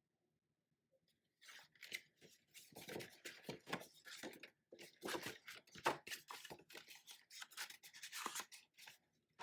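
Paper and cardboard rustling and scraping in quick, irregular strokes as a folded instruction insert is handled and unfolded, starting about a second and a half in.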